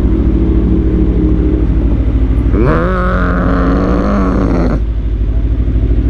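Aprilia Tuono V4 motorcycle engine running steadily under way, a low pulsing throb. A little before halfway a higher engine note rises in pitch, holds for about two seconds, then cuts off abruptly.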